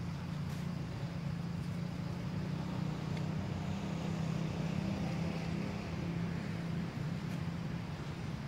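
A steady low engine hum that holds an even level throughout, with a few faint clicks.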